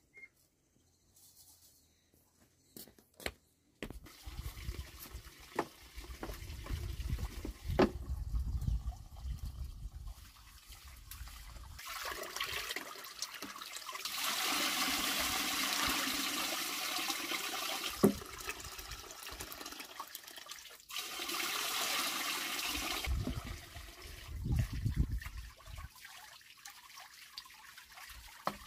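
Water from a hose pipe pouring into a pot of rice and splashing over its rim as the rice is washed. The flow is loudest for several seconds in the middle, stops briefly, then runs again for a couple of seconds.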